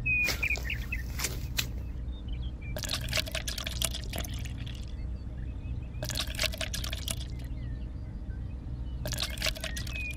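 Water poured in thin trickles from a tiny cup onto a sand mound, in three bursts of a second or two each. Faint short chirps near the start and a low steady hum sit behind it.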